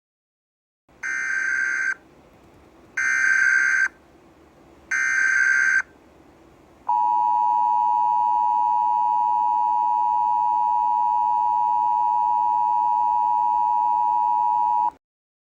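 Emergency Alert System SAME header: three bursts of shrill digital data tones, each about a second long and a second apart. Then comes the steady two-tone EAS attention signal (853 and 960 Hz together), held for about eight seconds, which signals the start of an emergency alert broadcast.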